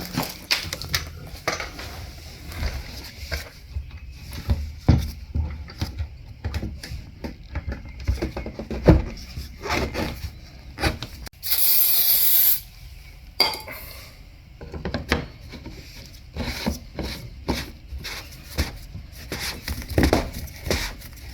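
Hand clatter of fitting a fuel pump module and its plastic retainer ring into a fuel tank: irregular clicks, knocks and scraping of metal and plastic parts. About halfway through there is a harsh, noisy rush lasting about a second.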